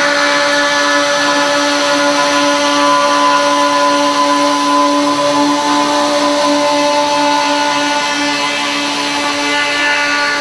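Circular saw of a Takeda CBF 3015W CNC steel-section machine cutting through steel: a steady, loud whine with several ringing tones.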